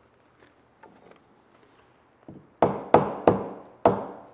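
Small hammer tapping glued wooden bungs into the screw holes of a black walnut coaming: a few faint light taps, then four sharp knocks near the end.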